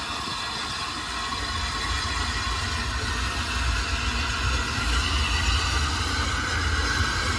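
LNER A3 Pacific steam locomotive 60103 Flying Scotsman working along the track with a short train, growing louder as it draws nearer, over a steady low rumble.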